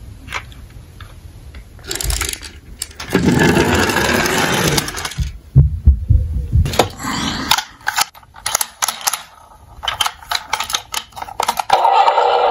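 A small toy police car rolls down a slope with a steady rushing noise for a few seconds, followed by a few sharp knocks as it lands. Light plastic clicks and taps of toys being handled follow, and near the end a steady pitched electronic tone starts.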